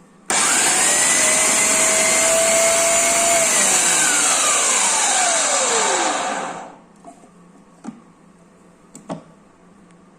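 Preethi Zodiac mixer grinder motor driving the vegetable-cutter slicing jar as tomatoes are sliced: it starts suddenly and runs loud and steady for about three seconds, then is switched off and its whine falls as it spins down to a stop. A few faint clicks follow near the end.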